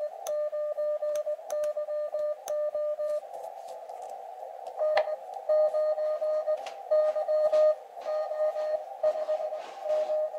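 Morse code (CW) from an Elecraft KX2 transceiver: a single steady-pitched tone keyed on and off in dots and dashes over a band of receiver hiss. The first three seconds or so fit the operator's own sidetone as he sends with the paddle. After a short stretch of hiss only, another station's code comes in about five seconds in, a little louder, as he copies it into the log.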